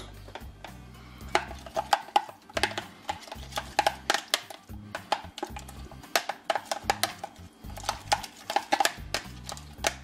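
A metal utensil stirring a thick mayonnaise-based sauce in a plastic container, with many irregular clicks and scrapes against the tub's sides.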